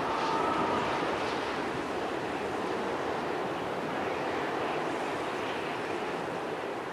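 Steady rushing, windy wash of noise with no beat or melody, and two faint high held tones in the first second.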